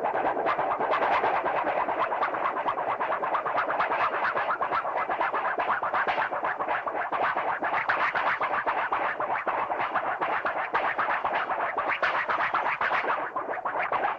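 Cartoon sound effect: a dense, rapid, scratchy flutter that goes on without a break.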